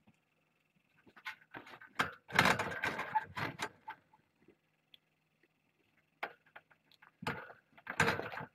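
Kittens pawing at and rubbing against a floor-level camera: irregular close rustles, scrapes and knocks right on the microphone, in two loud bouts about two and seven seconds in, with scattered clicks between. A faint steady electronic whine from the camera runs underneath.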